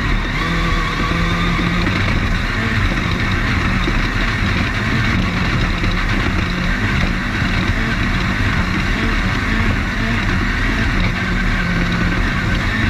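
Onboard sound of an off-road race car running at speed over a desert course: a steady engine note with constant road and chassis noise.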